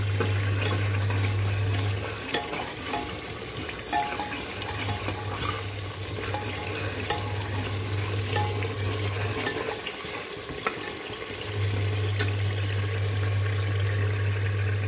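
Masala gravy sizzling as it fries in oil in an aluminium pot, stirred and scraped with a steel ladle, with a few sharp clicks of the ladle against the pot. The oil has separated from the masala, the sign that it is fully fried. A low steady hum comes and goes three times.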